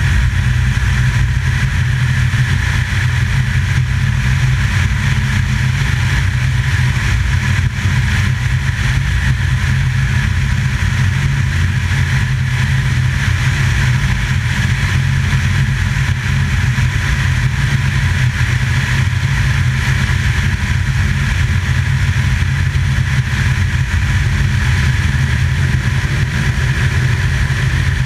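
A drone's motors and propellers running steadily in flight, heard through the camera it carries, with wind rumbling on the microphone underneath.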